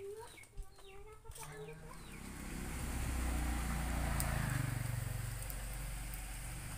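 Chickens clucking with short, bending calls for the first couple of seconds, then a steady low rumbling noise that swells and stays loud to the end.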